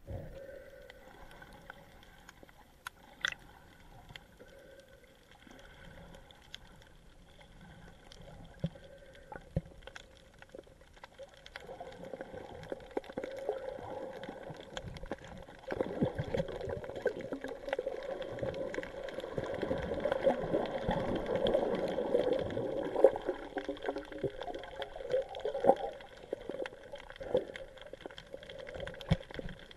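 Muffled underwater sound picked up by a submerged camera: a wash of water noise with scattered sharp clicks over a faint steady hum. The water noise swells in the second half and eases near the end.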